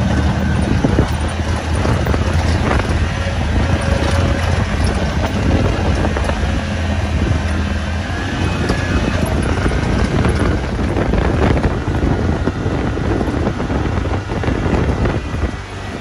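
Side-by-side UTV running steadily while driving on a dirt trail, its engine humming low under wind noise on the microphone.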